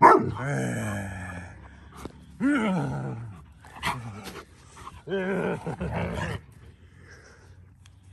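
Alaskan malamute vocalizing during rough play: three drawn-out, wavering calls that fall in pitch, the first and loudest right at the start, with a shorter one in between.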